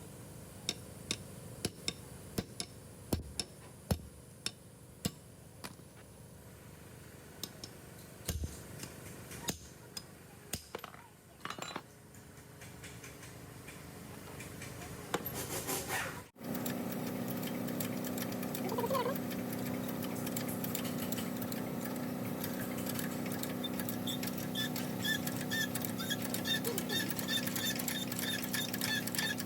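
Sharp light clicks and taps at uneven spacing, about one or two a second, for roughly the first half. After an abrupt break about 16 s in, a steady hum continues, joined later by a faint regular ticking.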